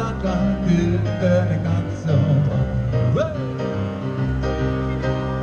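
Country-style music with guitar and a male singing voice.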